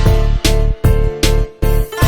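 Background music: an upbeat instrumental with plucked guitar-like notes over a steady bass, several notes a second.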